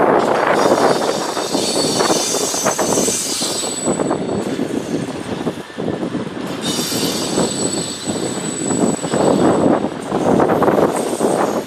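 Container freight train passing close by on flat wagons: a steady rolling rumble of steel wheels on rail with rapid clatter, and a thin high-pitched wheel squeal that comes and goes.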